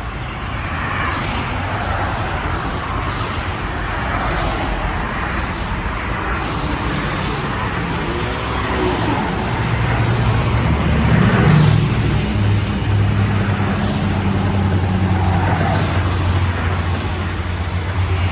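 Road traffic noise: a steady low rumble of vehicles on a busy road, with a louder low engine drone coming in about ten seconds in and peaking a second or two later.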